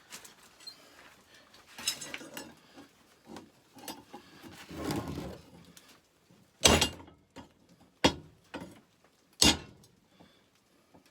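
Metal tools and steel being handled in a small shop: scattered clinks and short scrapes, with two louder knocks about six and a half and nine and a half seconds in.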